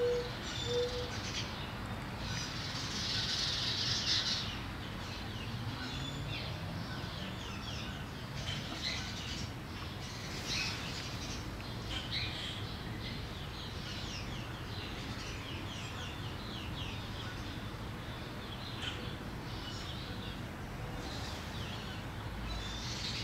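Small birds chirping repeatedly, with a denser stretch of song about two to four seconds in and a couple of short, low cooing notes in the first second.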